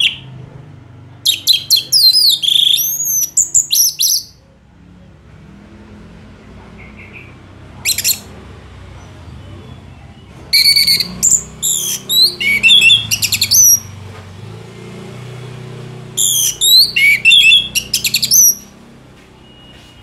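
Orange-headed thrush singing in three long bursts of rapid, varied, sharply gliding high notes, each about three seconds long and a few seconds apart, with a single short note in between.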